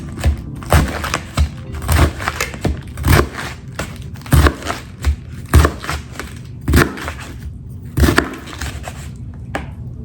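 Knife chopping romaine lettuce, a crunch and a thud with each stroke, in a steady rhythm of roughly one chop every half second.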